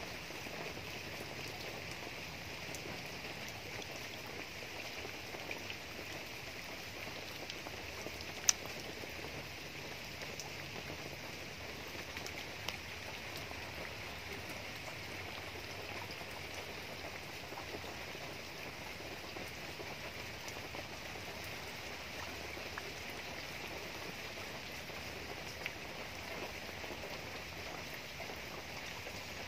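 Steady rain falling on leaves and vegetation, an even hiss, with a few sharp drip taps; the loudest is about eight seconds in.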